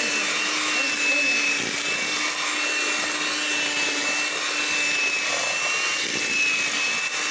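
Electric hand mixer running steadily with a high motor whine, its beaters creaming margarine in a plastic bowl.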